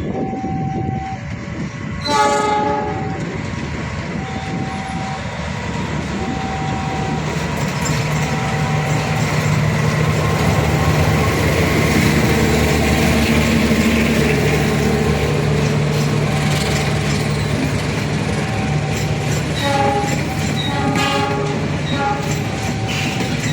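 Diesel passenger train passing, with the steady running of the locomotive and the clatter of the cars on the rails. It sounds its horn about two seconds in and again several times near the end, while a short tone repeats about every two seconds.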